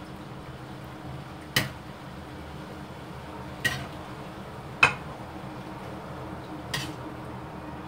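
Four short, sharp clinks of kitchenware knocking together, spaced irregularly, the third the loudest, over a steady low hum.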